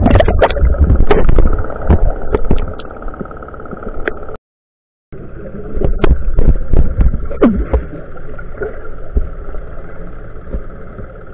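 Underwater sound through a submerged camera: water churning and bubbling, with frequent knocks and clicks over a steady hum. The sound drops out for under a second about four seconds in.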